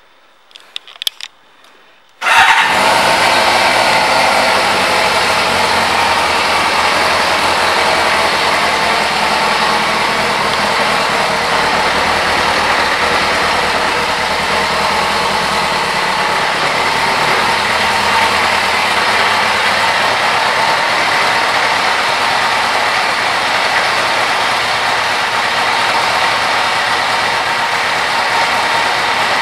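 1998 Kawasaki Ninja ZX-6's inline-four engine starting after a few faint clicks, catching suddenly about two seconds in. It then runs at a steady idle without revving.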